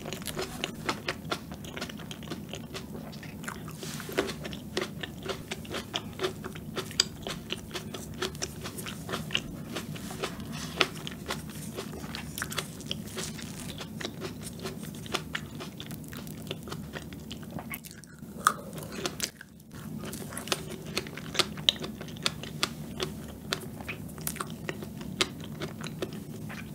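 Close-miked eating sounds: chewing and biting with many small wet mouth clicks and crunches, from eating green grapes and strawberry cream cake.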